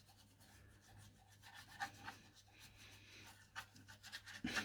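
Wax being rubbed onto the wooden case of a mantle clock: faint, quick scratchy rubbing strokes, with a few light clicks and a short knock near the end.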